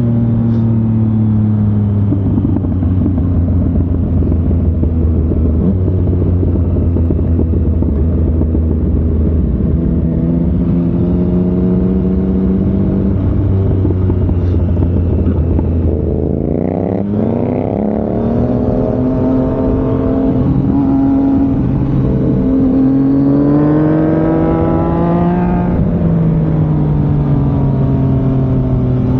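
Sport motorcycle engine heard on board while riding, over a steady hiss. The engine note steps up and down with throttle and gear changes, rises sharply about 17 seconds in, then climbs again and drops back near the end.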